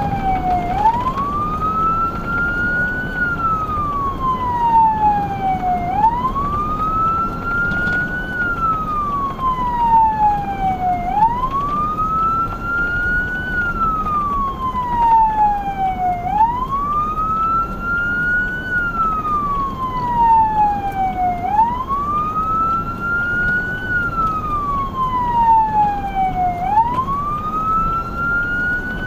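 Emergency vehicle siren on a wail: a loud tone sweeps up over about two seconds, falls back over about three, and repeats steadily, over low engine and road noise.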